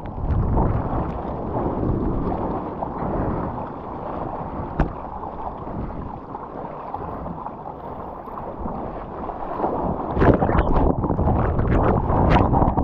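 Sea water sloshing and splashing against a surfboard at water level, with wind buffeting the microphone and one sharp tick a little before halfway. From about ten seconds in it turns into louder, rushing splashes as broken whitewater washes over the board.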